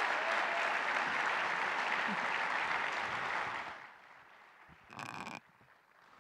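Audience applause, dense and steady, that dies away about four seconds in, followed by a brief, quieter noise about a second later.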